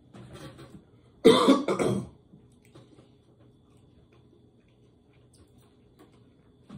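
A man coughing in a short burst of three quick coughs about a second in, from the burn of a very spicy hot-chicken sandwich.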